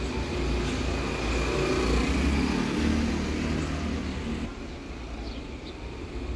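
A motor vehicle's engine running close by with a steady low rumble, which dies down about four and a half seconds in as the vehicle moves off.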